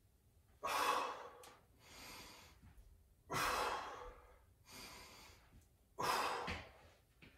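A man breathing hard from exertion during a core exercise: three forceful exhales about every two and a half seconds, with quieter in-breaths between.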